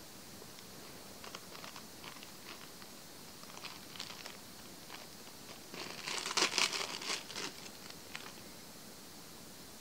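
Thin clear plastic packaging bag crinkling as it is handled, with scattered light crackles and a louder stretch of crinkling about six to seven seconds in.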